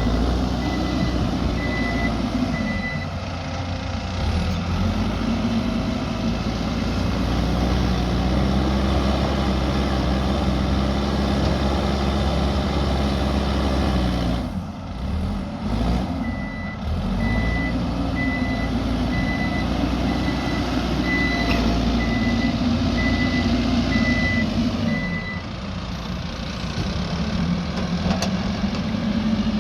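Diesel engine of an earthmoving machine working, its revs rising and falling under load and dropping briefly about halfway through. A reversing alarm beeps about once a second near the start and again for several seconds in the second half.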